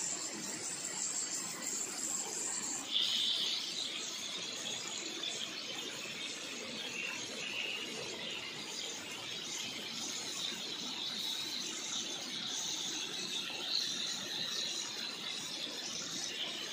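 Insects chirring in steady high drones, with a stronger high band joining about three seconds in, over a low even hiss.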